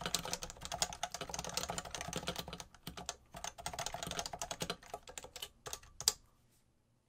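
Fast typing on a Heavy-6 custom keyboard: a dense run of keystrokes, a short lull about three seconds in, a second run, then a few scattered keys ending on one louder stroke about six seconds in before the typing stops.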